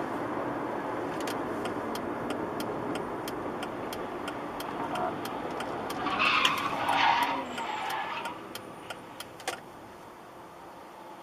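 Car tyres squealing in a brief skid about six seconds in, over steady road noise heard from inside a moving car, with a light ticking about three times a second.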